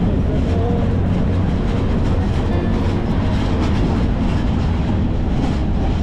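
Nissan pickup truck driving along a rough dirt lane, heard from on board: a steady, loud rumble of engine and road.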